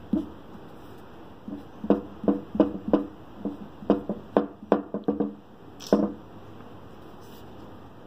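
Drawing table knocking and creaking under the hand's pressure as work goes on over the sheet: a quick, irregular run of about a dozen short, ringing knocks lasting about four seconds.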